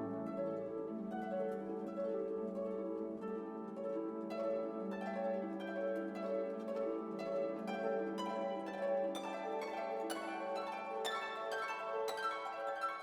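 Background music: quick plucked notes over a held low note, the plucking growing busier about four seconds in.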